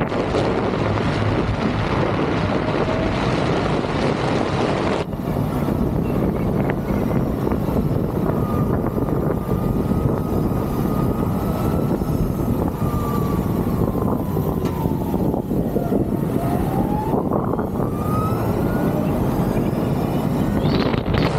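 Ovaobike MCR-M electric motorcycle riding along a road, with heavy wind rush and road noise on the microphone. A faint whine from its electric motor falls in pitch past the middle as the bike slows, then rises again as it speeds up. The sound changes abruptly about five seconds in.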